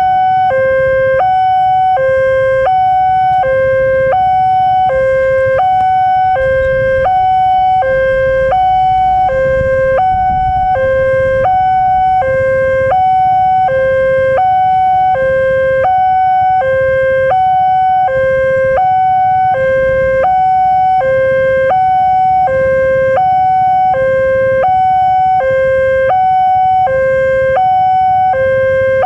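Level-crossing warning alarm sounding from the horn loudspeaker on the crossing signal: an electronic two-tone signal alternating steadily between a lower and a higher tone, about one pair a second. It is the warning that a train is approaching and the crossing is closed.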